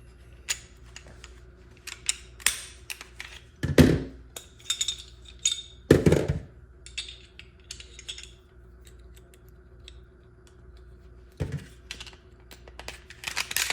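Glock 19 pistol being handled: a scatter of small clicks and clacks of polymer and metal, with a few heavier thunks about four and six seconds in and again near the end, over a faint steady hum.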